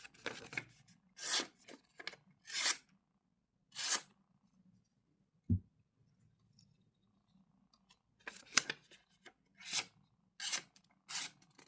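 Pocket knives being handled: a series of short rubbing and scraping strokes, with one dull thump about halfway through.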